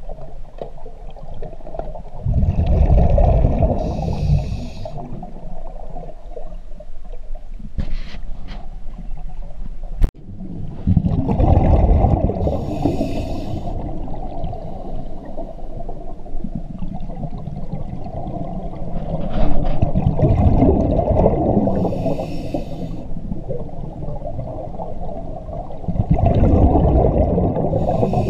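Scuba diver breathing through a regulator underwater. Four long bursts of exhaled bubbles, roughly every eight seconds, each with the regulator's hiss. A sharp click comes about ten seconds in.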